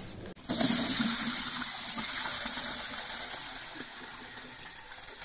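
Soaking water gushing out of a tipped basin of cracked green olives through a plastic colander into a bucket. The rush starts suddenly about half a second in and slowly tapers off. This is the bitter soaking water being drained in the daily change while curing the olives.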